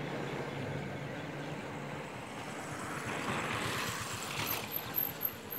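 Outdoor road traffic: a motor vehicle's low engine hum, then a swell of noise about three to four seconds in as a vehicle passes. A rapid high-pitched pulsing starts near the end.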